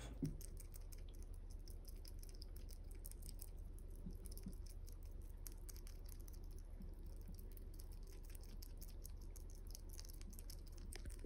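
Hedgehog licking and chewing a jelly treat from a squeeze tube: a fast, faint run of small wet clicks.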